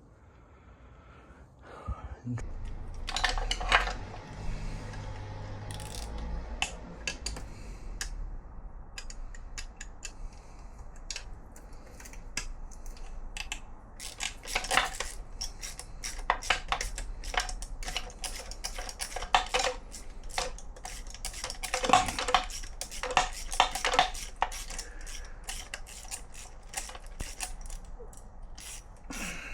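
Irregular metallic clicks and clinks of hand tools and small metal parts on a motorcycle engine being dismantled, busiest in a few short clusters.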